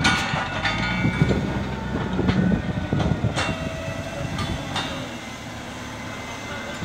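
SDLG wheel loader's diesel engine running as the machine drives over rough dirt, with repeated metal clanks and rattles, most in the first half.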